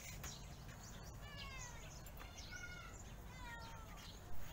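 A cat meowing faintly in the background, about once a second, each meow falling in pitch; the last one, near the end, is the loudest.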